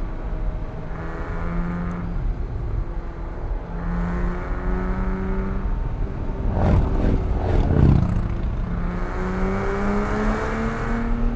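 Porsche 987.1 Cayman S's 3.4-litre flat-six engine, heard from inside the car, revving up and easing off again and again as the car is driven hard through a run of curves. About two-thirds of the way in there is a louder, rougher stretch with sharp crackles.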